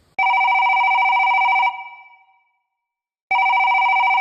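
Telephone ringing on a call being placed: two trilling rings of about a second and a half each, about three seconds apart.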